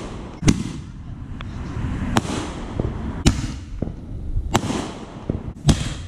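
Consumer aerial fireworks, a firework cake, going off in a series of sharp bangs. There are about five loud reports, roughly a second apart, with smaller crackles and a low rumble between them.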